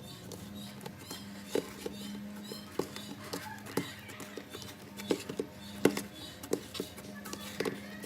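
Cloud slime being squeezed and stretched by hand, giving off irregular sticky pops and crackles over a faint steady hum.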